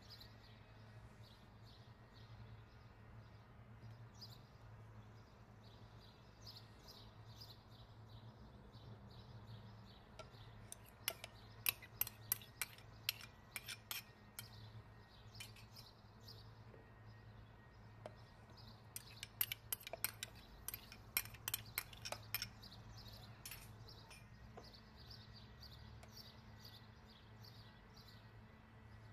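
A metal spoon clinking against a glass bowl as ingredients are scooped into a blender jar: two runs of quick clinks, about eleven seconds in and again about twenty seconds in, over a faint steady low hum.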